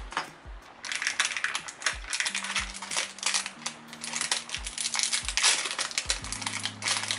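Thin clear plastic wrapping crinkling and rustling as it is handled and pulled off a small fishing lure, starting about a second in. Soft background music with a steady beat plays underneath.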